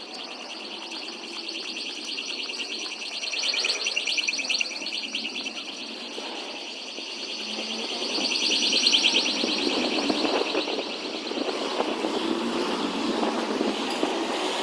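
A tram or other rail vehicle running past, its wheels squealing on the rails over a low rumble; the squeal swells twice.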